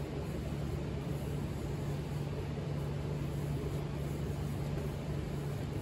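A steady machine hum: a constant low drone with an even hiss over it, unchanging throughout.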